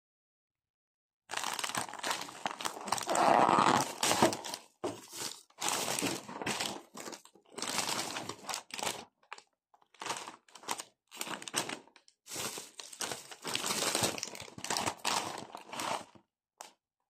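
Thin plastic carrier bag and potato-chip packets crinkling and rustling as they are handled, in irregular bursts with brief silent gaps. The rustling starts about a second in, is loudest a few seconds later, and stops just before the end.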